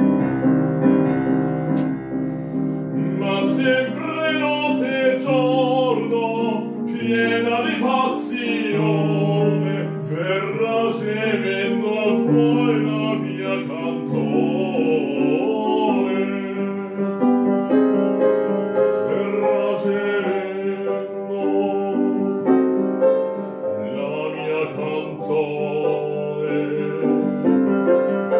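A male classical singer sings with operatic vibrato to grand piano accompaniment. The piano plays alone for the first few seconds, then the voice comes in.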